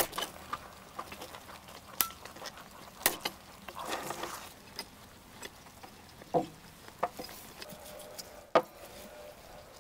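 Scattered sharp metal clicks and clinks of pliers working the wire that binds a spit-roasted lamb's legs to the spit bar, with one louder knock near the end.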